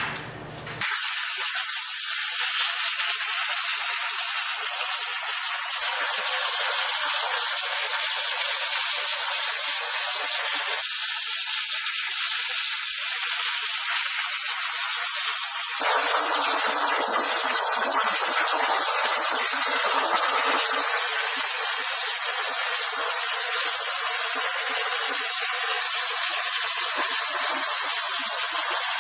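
Metal-cutting torch hissing steadily as it cuts quarter-inch steel plate, starting about a second in, with the sound getting fuller about sixteen seconds in.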